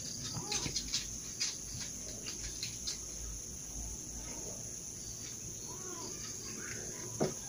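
Steady high-pitched drone of insects, with faint clicks of cats chewing their food through the first three seconds.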